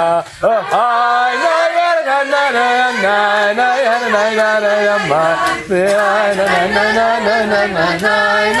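A group of voices singing a melody together, with some long held notes and a brief break just after the start.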